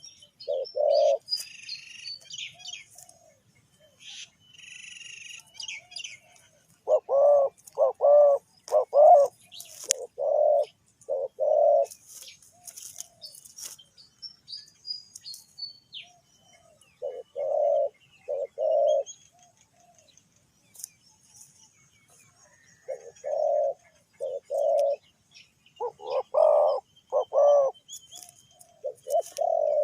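Spotted doves cooing in repeated phrases of three or four deep notes, with several bouts and short pauses between them, some phrases louder than others. Small birds chirp high-pitched in the gaps.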